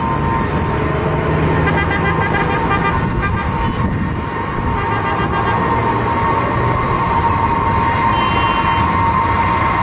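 Ilyushin Il-76 cargo jet's turbofan engines running steadily: a constant high whine over a loud rush.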